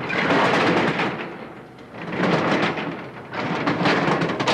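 Steel roll-down security gate on a shop front being rolled up, rattling loudly in three long pushes.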